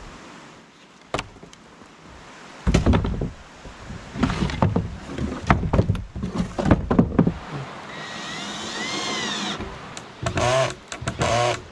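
Long wooden branches being handled: dragged, knocked and clattering against each other, with a rising-and-falling squeak and creaks of wood rubbing near the end.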